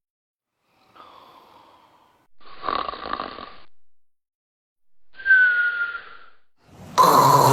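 A series of human snores played as separate samples, four in a row with short gaps between them. The first is faint, one about five seconds in carries a thin falling whistle, and the last is the loudest. They are presented as types of snoring that signal obstructive sleep apnea, with overly long pauses between snores.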